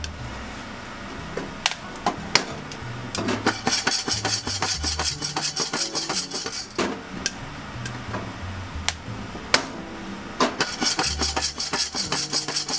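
Guatemalan coffee beans at first crack in a lidded pot: scattered sharp pops and cracks throughout. Twice, about three seconds in and again near the end, the beans rattle and swish as the pot is shaken over the gas flame.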